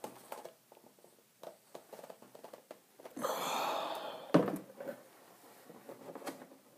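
Handling sounds while unboxing a craft station: scattered light clicks and taps, a scraping rustle lasting about a second a little over three seconds in, then a sharp knock, the loudest sound.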